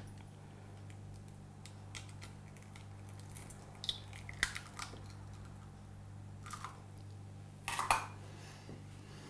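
An egg being broken apart and emptied into a small glass bowl: faint crunches of eggshell and a few soft clicks and taps, the loudest about 8 seconds in.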